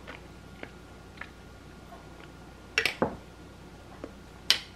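Quiet handling sounds of glass jars on a paper-towel-covered counter: a few soft clicks, a louder double knock about three seconds in as a jar is set down, and a sharp click near the end.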